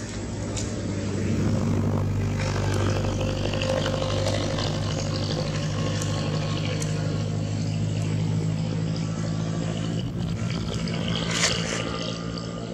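A motor engine running steadily with a low, even hum. A short sharp tap stands out about eleven seconds in.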